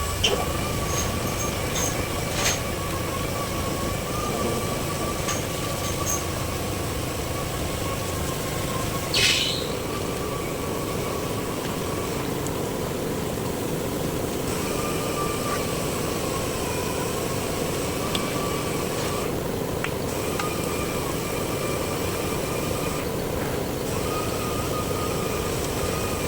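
A small motor running steadily, with a slightly wavering whine and a few short clicks. About nine seconds in there is a brief hissing burst.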